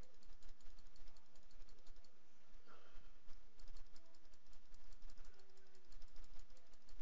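Computer mouse button clicking quickly and unevenly, several clicks a second with a brief pause about two seconds in, each click placing a stitch point in embroidery digitizing software.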